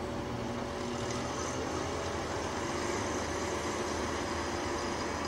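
Narrow-gauge diesel railcar's engine running steadily as the railcar creeps slowly along the station track, a low, even hum with a steady whine above it.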